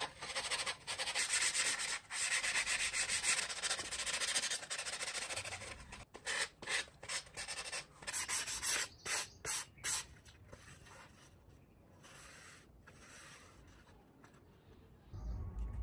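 Sandpaper rubbed by hand over a thermocol (expanded polystyrene foam) fuselage. Steady back-and-forth scratchy sanding breaks into a run of short separate strokes about six seconds in, then fades to quiet for the last few seconds.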